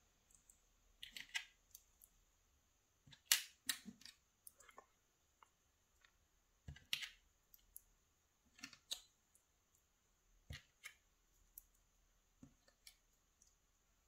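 Faint, scattered small metallic clicks and ticks as the thin metal sliders and spacers of a Mottura pump lock cylinder are fitted back onto its core by hand. The loudest is a pair of clicks about three seconds in.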